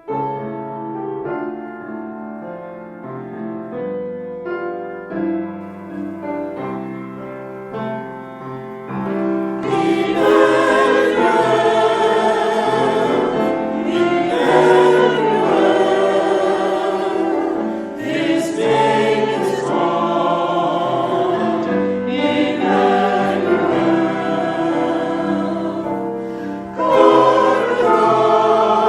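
Church music: a piano introduction, then a choir comes in singing with accompaniment about nine seconds in.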